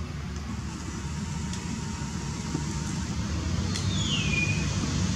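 Steady low engine hum, like a vehicle running, with a short high call sliding downward about four seconds in.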